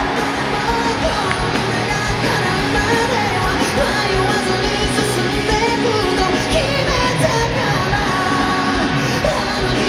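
Live rock band music with a man singing, loud and continuous.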